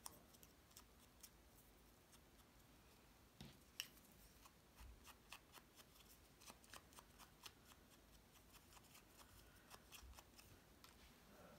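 Faint, irregular light taps and paper handling as a small ink pad is dabbed around the edges of paper cut-out clouds.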